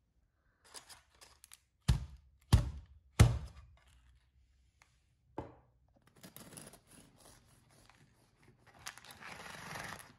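Three sharp thuds in quick succession about two seconds in, and another a little later; then a bread knife sawing through the crusty top of a baked banana bread loaf, the crust crackling and crunching against parchment paper, growing louder near the end.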